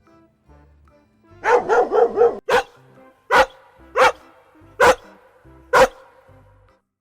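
A dog barking over quiet background music. About a second and a half in comes a quick run of four barks, followed by single barks roughly once a second.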